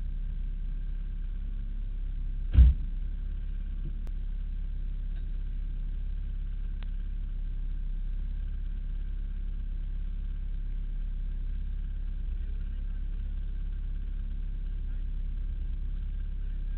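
Turbocharged SR20DET engine of an S13 240SX drift car idling steadily, heard from inside the cabin. A single loud thump comes about two and a half seconds in.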